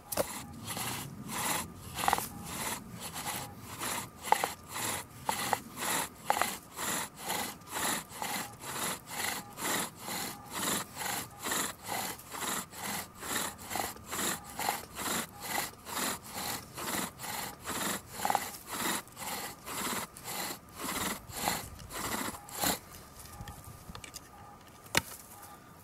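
Sycamore bow drill at work: the spindle grinds in the hearth board with steady back-and-forth bow strokes, about two a second, to build friction heat for an ember in a freshly cut hole. The strokes stop a few seconds before the end.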